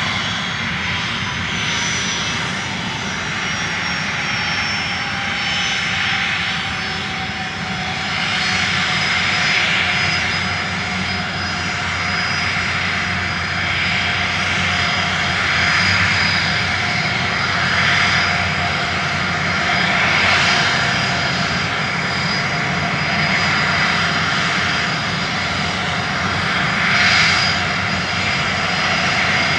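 Airplane engines droning steadily, with a thin whine that sinks slowly in pitch.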